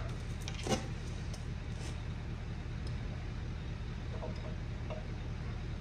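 Steady low machine hum with a few faint clicks in the first two seconds.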